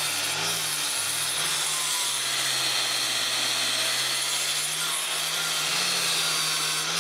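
A 4-1/2-inch angle grinder with a flap disc sands the wooden scales of a knife handle down toward the steel. The motor runs steadily, its pitch wavering slightly, under a continuous abrasive rasp.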